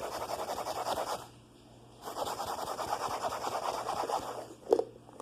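A lidded plastic container of detergent and water being shaken rapidly to whip it into foam, a fast scratchy rhythm in two bouts with a short pause between, then a single knock near the end.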